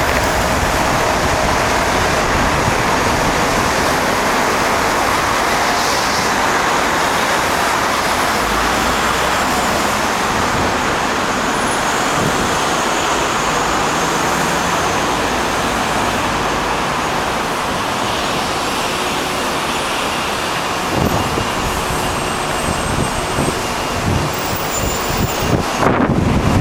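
Steady roar of road traffic. Wind buffets the microphone in low, irregular thumps during the last few seconds.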